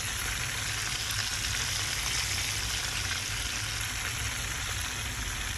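Flour-and-breadcrumb-coated chicken wings deep-frying in hot oil: a steady sizzle with faint crackles, over a low hum.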